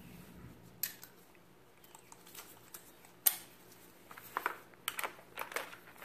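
Faint metallic clicks and taps of a socket and extension being handled and fitted onto a cordless impact wrench, which is not running. There is a sharper click about three seconds in and a run of small clicks near the end.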